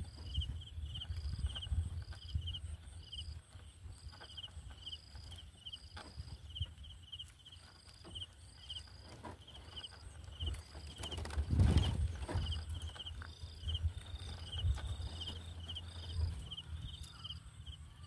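Outdoor ambience: a high, short chirping call repeating about once or twice a second, over a low wind rumble, with a louder rustle about two-thirds of the way through.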